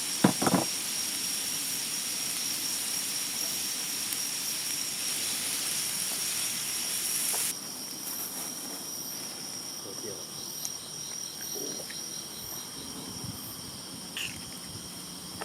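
Food sizzling over a wood fire, a steady hiss that cuts off abruptly about halfway through. After it, insects chirp in the background, with one short rapid trill, and there is a brief knock right at the start.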